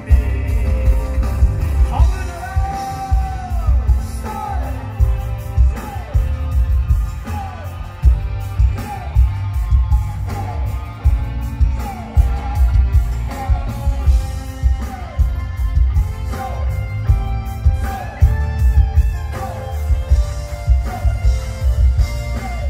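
Live concert music over a loud PA: a band with heavy pulsing bass and a singer's voice over it.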